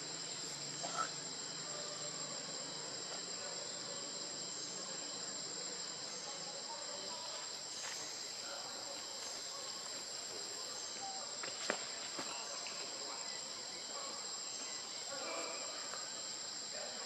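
Steady high-pitched drone of forest insects, unbroken throughout, with a single sharp click about two-thirds of the way through.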